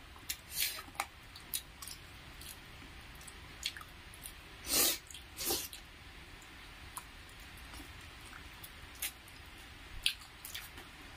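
Close-up eating sounds of rice and chicken curry eaten by hand: soft wet chewing and mouth smacks, with fingers squishing rice into gravy. Scattered short clicks throughout, with two louder wet sounds about five seconds in.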